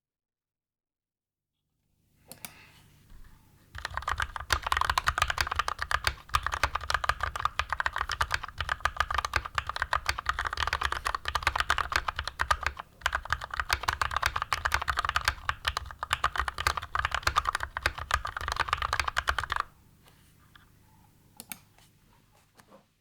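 Typing on a mechanical keyboard fitted with linear switches: a fast, dense run of keystrokes that starts a few seconds in, breaks briefly near the middle, and stops a few seconds before the end, with a few faint key clicks after it.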